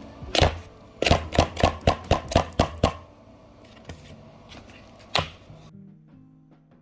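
Sharp taps or knocks of a hard object: one, then a quick run of about nine over two seconds, and one more a couple of seconds later, over faint background music that stops near the end.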